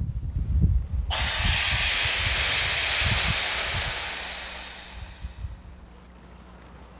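A few low knocks, then about a second in a sudden loud rush of air hissing through the valve of a resin pressure pot, fading away over about four seconds.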